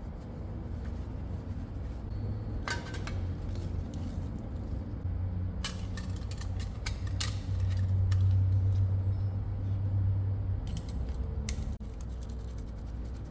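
A low mechanical hum, strongest for about three seconds in the middle, with scattered metallic clinks and knocks: workshop machinery running while metal parts are handled.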